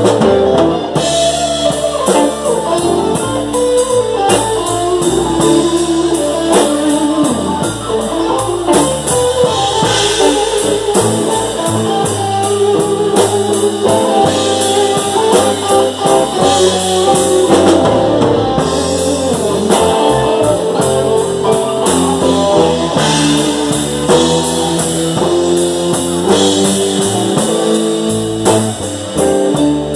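Live blues band playing an instrumental passage, electric guitar over a drum kit, with no singing.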